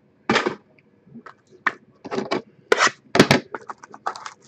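Irregular scraping and crinkling of card-box packaging being handled: about eight short, uneven rustles and scrapes of cardboard and wrapper.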